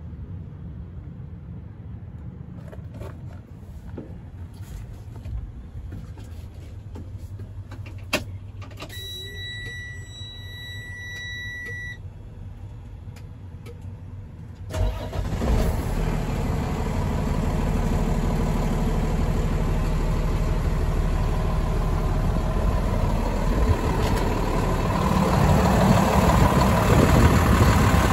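Freightliner M2 106 truck: a click, then a steady dashboard warning tone for about three seconds as the ignition comes on. About halfway through, the diesel engine starts and settles into a steady idle, louder near the end.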